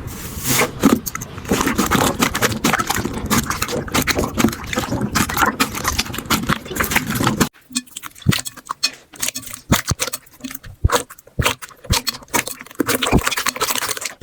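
Slime being squeezed and pressed by hand, making a dense run of sticky clicks and crackles. About halfway through it changes suddenly to sparser, separate pops and clicks.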